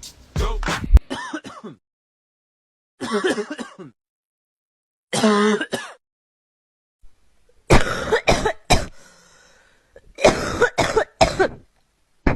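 A series of different human coughs and throat clearings, about five separate bouts each lasting about a second, with silence between. Some bouts are several coughs in quick succession. Music cuts off about a second in.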